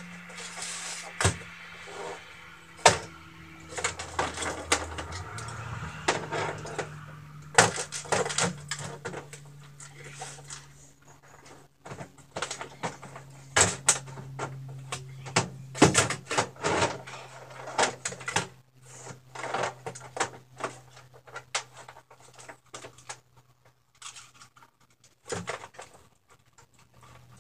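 Knocks and clatter of tools and cases being handled and set down in a pickup truck bed, in irregular bursts, over a steady low hum.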